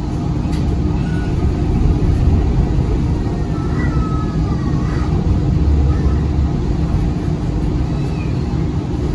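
Interior running noise of a CAF Urbos low-floor tram under way: a steady low rumble with a constant hum, and a few faint short squeals about four seconds in.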